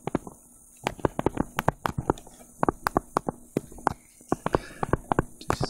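Stylus pen tapping and scratching on a touchscreen while block capitals are written by hand: an irregular run of sharp taps, several a second.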